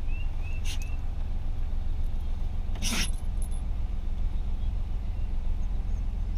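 Chevrolet Colorado pickup engine idling, heard from inside the cab as a steady low rumble, with a small click just under a second in and a louder click about three seconds in.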